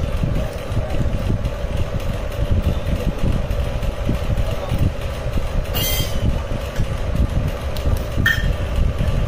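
Steady low rumble with a constant mid-pitched hum, with a brief hiss about six seconds in and a short high tone near the end.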